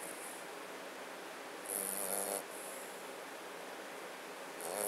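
Mastiff–boxer mix puppy snoring in its sleep: one snore about two seconds in and another starting near the end, each lasting about half a second.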